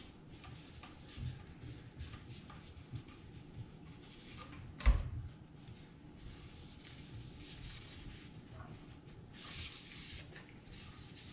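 Cloth rag rubbing and wiping along a rifle's barrel and action in soft, irregular strokes, with one sharp knock about five seconds in.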